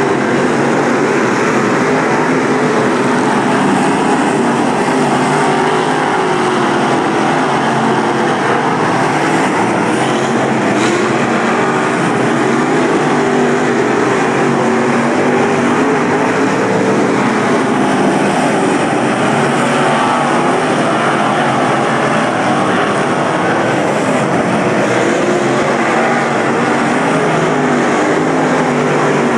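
A field of limited late model dirt-track race cars running laps, their V8 engines loud and continuous, the pitch wavering as the cars accelerate and lift through the turns.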